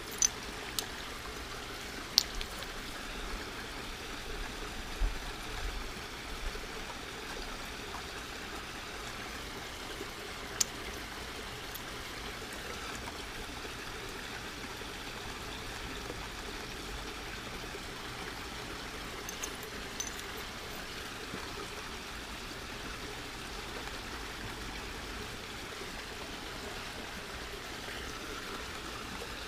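Steady trickling, water-like rush throughout. Over it come several sharp clicks, most in the first few seconds, as flat stone pieces are set against each other and against the glass of a fishbowl terrarium.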